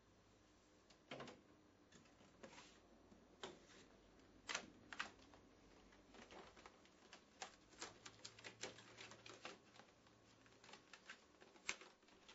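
Faint, irregular clicks and crackles of thin printed card being handled as the knife-cut shape is pressed out of its sheet, coming more often from about halfway.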